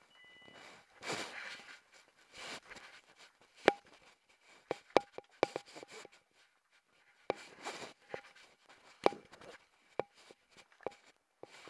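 Irregular sharp clicks and taps, about a dozen, some with a short ring after them, with brief rustling between.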